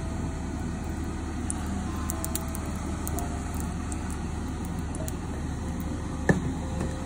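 Faint, scattered crackling of a lump of solid oil melting in a hot nonstick pan, over a steady low hum. One sharp knock about six seconds in.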